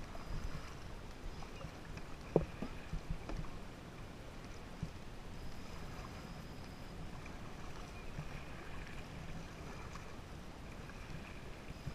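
Water splashing and rippling around a kayak as it is paddled down a shallow, fast-moving river riffle, with a sharp knock about two and a half seconds in and a few lighter clicks after it.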